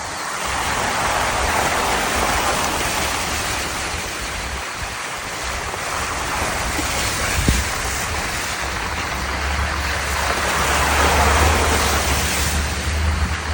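Wind rushing over the microphone in swells, with a low rumble that grows stronger past the middle and a single brief tick partway through.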